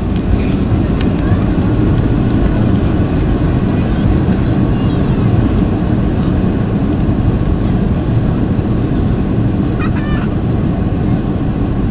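Engine noise inside the cabin of a Boeing 757-300 at take-off thrust: a loud, steady rumble as the take-off roll begins.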